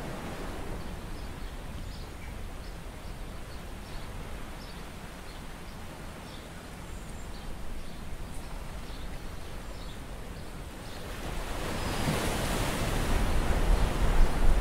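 Shallow seawater washing among shoreline rocks: a steady wash with faint scattered ticks. About eleven seconds in, a louder rushing sound swells up, with low rumbling near the end.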